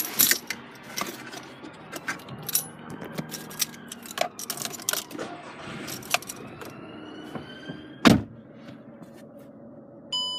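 Clicks and knocks of a 2009 Skoda Fabia's interior being handled. A faint whine rises in pitch for a couple of seconds, then one heavy thump comes about eight seconds in, the loudest sound.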